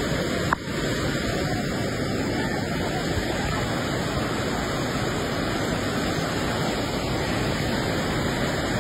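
Steady rushing roar of a swollen river in flood pouring under a bridge, with a brief click and dropout about half a second in.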